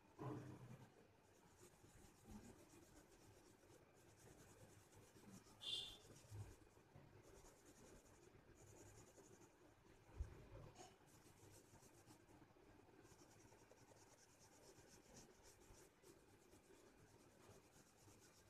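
Near silence: the faint scratch of an oil pastel crayon shading across paper, with a few soft bumps.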